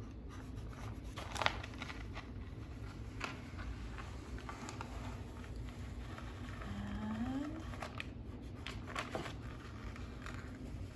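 Transfer tape being slowly peeled off a vinyl wall decal and rubbed down against the wall with the fingers: faint crackling and scraping of the paper with scattered small clicks. A brief faint rising hum comes about two-thirds of the way through.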